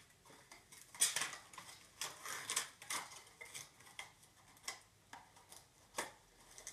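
Small plastic toy pieces and packaging being handled: scattered light clicks and rustles, with sharper clicks about a second in and again near six seconds.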